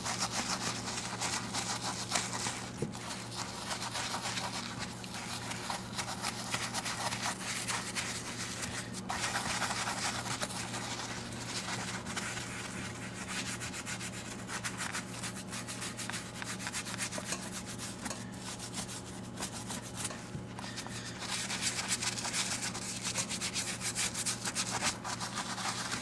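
Soft horsehair brush scrubbing a leather shift boot lathered with leather cleaner: rapid, continuous brushing strokes working the suds into the leather, over a steady low hum.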